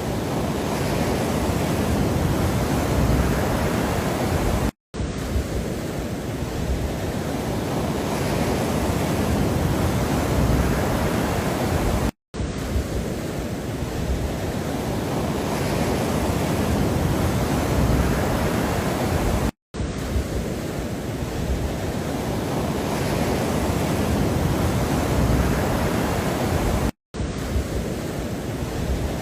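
Steady low rushing noise from a relaxation background track, with most of its weight in the bass. Four times, about every seven and a half seconds, it drops out to silence for a split second, as a short looped segment restarts.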